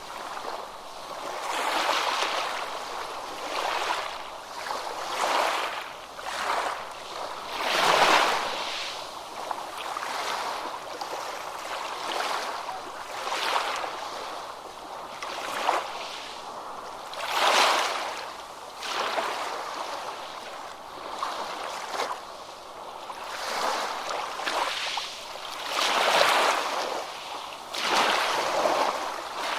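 Ocean waves breaking on a shore, a continuous wash of surf with waves swelling and breaking every few seconds.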